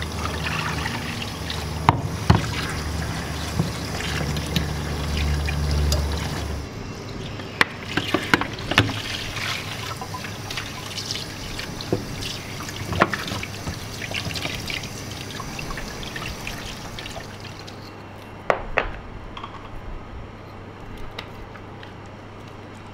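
Tap water running into a sink and splashing over raw chicken feet in a bowl and pork ribs on a metal tray as they are rinsed, with occasional sharp clinks and knocks from the spoon, bowl and tray being handled. A low hum underlies the first six seconds or so.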